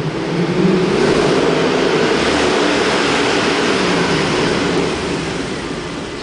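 Stock exhaust of a 2009 Mercedes-Benz E63 AMG's 6.2-litre V8 under acceleration. It gets louder about half a second in, holds, then fades away over the last second or so.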